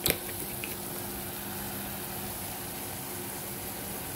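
A light knock at the start, then a steady low hiss with a faint hum: a pot of chicken mince with chopped vegetables cooking over a gas burner.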